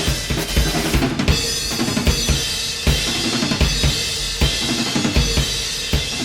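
Room-mic recording of a real acoustic drum kit playing a punk beat, with kick, snare and steady cymbal wash, heavily compressed through the Softube Germanium compressor plugin with its tone and drive turned up.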